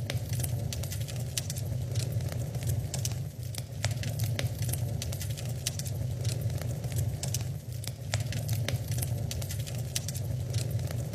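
Wood fire crackling in a fireplace: frequent sharp, irregular pops and snaps over a steady low rumble of the burning logs.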